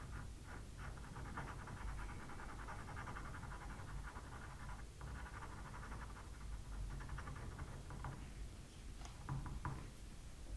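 Faint pastel pencil on Pastelmat paper, quick scratching and dotting strokes laying in fine texture, busiest through the middle of the stretch.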